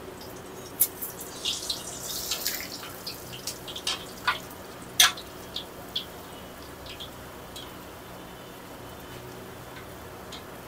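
Luchi deep-frying in hot oil in a steel karahi: a steady sizzle with sharp crackles and pops, thick in the first half and thinning to an even sizzle.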